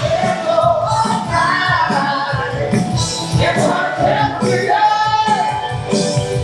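A song with singing over a steady beat, played loud through the show's sound system.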